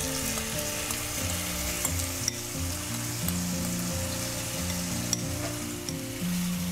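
Spice-coated paneer cubes sizzling as they drop into hot oil in a nonstick kadai and start to fry, with a few light clicks. Soft background music underneath.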